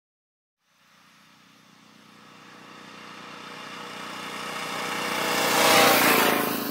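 A vehicle engine fades in from silence and grows steadily louder as it approaches, peaking about six seconds in and starting to fall away as it passes.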